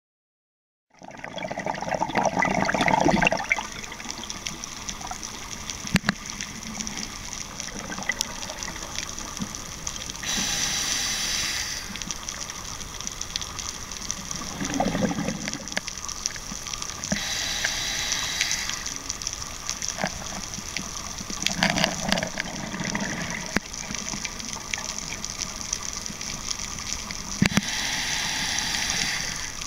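Scuba diver breathing through a regulator underwater: gurgling bursts of exhaled bubbles alternate with hissing inhalations, one breath every several seconds.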